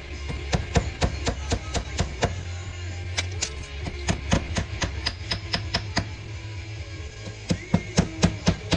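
Hammer blows driving nails into vinyl board and batten siding: quick runs of sharp strikes, several a second, with short pauses between runs. Music plays underneath.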